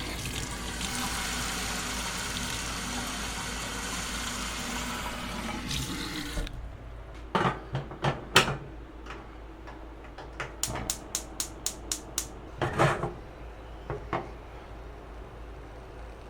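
Tea being made: a steady rush of water that stops abruptly after about six seconds, then light clinks of crockery, with a quick even run of about eight clinks and a few single knocks after it.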